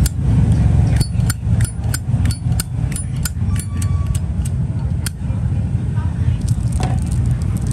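A Zippo lighter being handled: about a dozen sharp metallic clicks of its hinged lid flicking open and snapping shut, roughly three a second for several seconds. A steady low rumble runs underneath.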